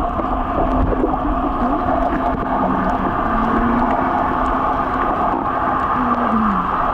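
Underwater sound picked up by a submerged camera: a steady wash of water noise with the drone of a boat engine carried through the water, its pitch wavering and dropping near the end.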